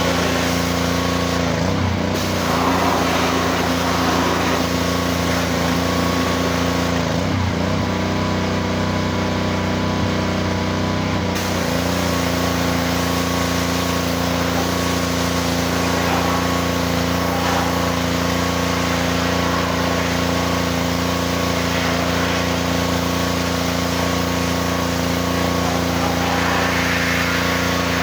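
Small engine of a pressure washer running steadily under a hiss of high-pressure water spray. The engine note wavers briefly about two seconds in and shifts for a few seconds in the first half before settling back.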